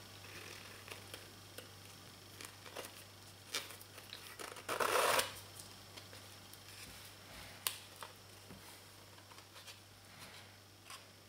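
A small card-stock gift card and its satin ribbon being handled: faint paper rustles and light taps, with one louder rustle of about half a second near the middle. A faint steady low hum runs underneath.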